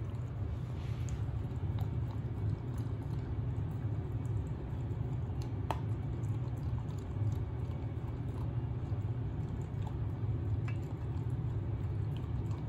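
Corgi eating from a stainless steel bowl: steady chewing with scattered sharp clicks of teeth and food against the metal bowl, one sharper near the middle. A steady low rumble runs underneath.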